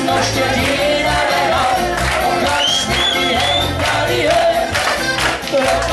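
A live band playing loud amplified music with singing and a steady bass line, with the voices of a crowd mixed in.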